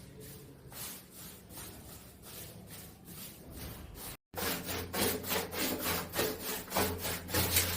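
Rhythmic back-and-forth rubbing strokes on a hard surface, about three a second. After a brief cut just past halfway the strokes are louder, over a low steady hum.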